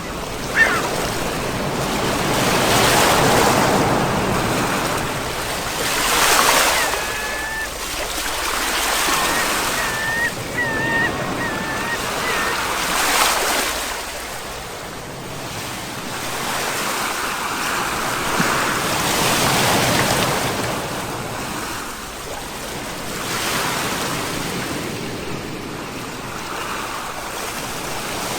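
Sea waves breaking on the shore, the surf swelling to a break every few seconds and then washing back.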